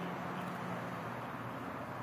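Steady traffic noise: a continuous rushing hum of road vehicles with a faint low drone, unchanging throughout.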